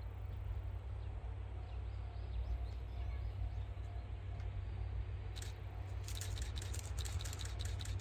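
Distant DE10 diesel-hydraulic locomotive approaching slowly, a low steady rumble. About five seconds in, a run of rapid sharp clicks begins, several a second.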